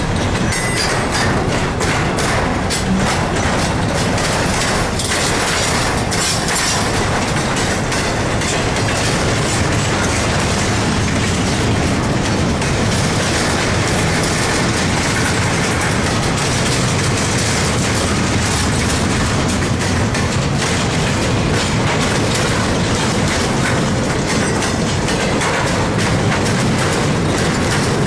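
Double-stack intermodal container train rolling past: the steady rumble and rattle of loaded well cars on the rails, with scattered wheel clicks and knocks, most in the first couple of seconds.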